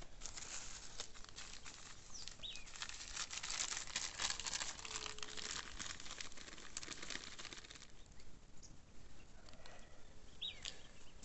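Plastic packet and paper wrapping crinkling as salt is sprinkled over fried fish, a dense run of small crackles that thins out about eight seconds in.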